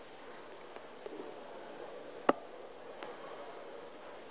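A steel-tip dart thudding once into a Nodor bristle dartboard, a single sharp hit a little over two seconds in, over a faint steady hum.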